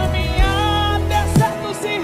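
Live gospel band of drums, bass, guitars and keyboard playing a held chord, with a drum hit about a second and a half in.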